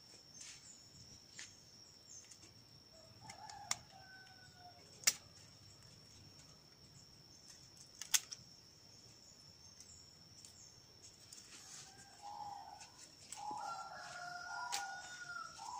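Pruning shears snipping dragon fruit stems: a few sharp, separate clicks. A rooster crows near the end, over a steady high-pitched hum.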